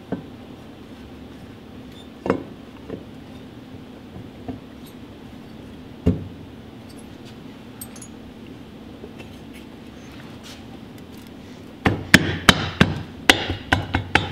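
Aluminium engine casing of a Sachs KM24 rotary engine knocking as the housing is fitted over the rotor: a few single knocks, then a quick run of loud clacks near the end as the cover is pressed down and springs back against the apex seal springs.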